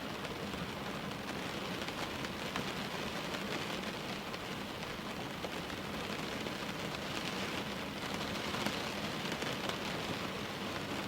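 Steady rain falling at a window: an even hiss with faint scattered drop taps.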